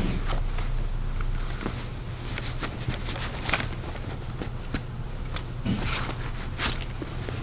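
Leather work gloves being handled, flexed and rubbed, one of them stiff and scorched from a fire test, with the occasional contact against a metal table: scattered rustles, scuffs and soft crackles over a steady low hum.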